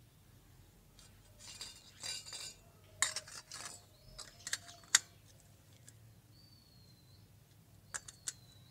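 Miniature stainless steel utensils clinking: a small spoon against a tiny steel bowl and toy steel plates being picked up and knocked together, with some rustling at first. A cluster of sharp clinks comes a few seconds in, the loudest near the middle, and three lighter clinks come near the end.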